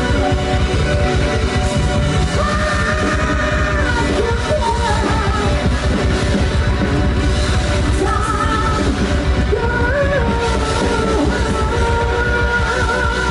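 Live rock band playing loudly, with a singer over drums and guitar.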